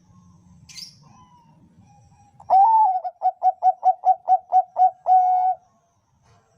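Bangkok-type zebra dove (perkutut) cooing one full song phrase: a long opening coo, a quick run of about nine short coos at roughly four a second, then a long held closing coo. A brief faint high chirp comes about a second in.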